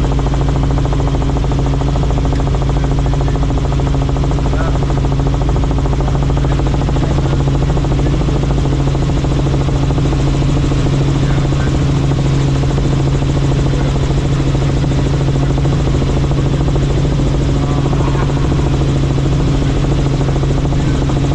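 Helicopter in flight: a loud, steady rotor and engine drone with a constant low hum that does not change.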